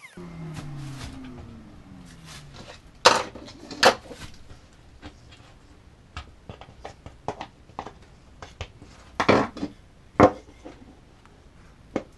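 A router spins down after being switched off, with a hum falling in pitch. Then comes a run of sharp clicks and knocks, a few of them loud, as a flat screwdriver picks and scrapes foam and fiberglass debris out of the freshly routed fin-box slot in a surfboard.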